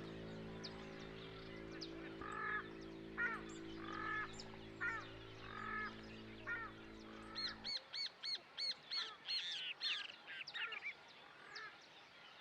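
Wetland birds calling: a repeated two-note call about once a second, then a fast run of high, arched calls near the end. A sustained low music chord lies underneath and cuts off suddenly partway through.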